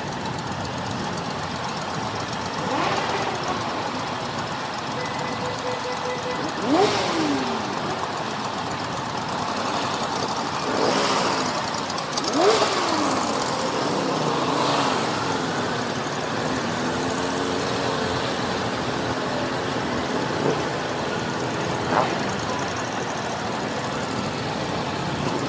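Motorcycle engines running in a group ride. Several revs rise and fall a few seconds apart, the strongest about halfway through, over a steady rush of wind and road noise.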